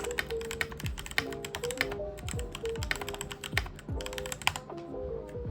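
Rapid typing on a Keychron K12 mechanical keyboard with Keychron Pro brown tactile switches in an aluminium case: a quick, uneven run of key clicks, several a second, over background music.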